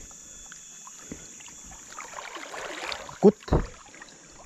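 Shallow river water splashing and sloshing as a hooked hampala is brought to hand, with a short loud thump a little over three seconds in.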